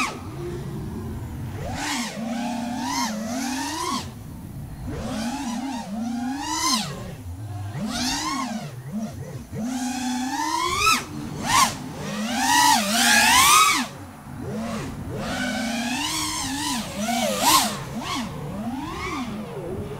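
6S FPV freestyle quadcopter's brushless motors and propellers whining, the pitch rising and falling constantly with the throttle.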